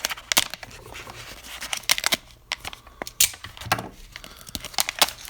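Packaging being torn open and handled: irregular tearing and crinkling with many sharp clicks and snaps.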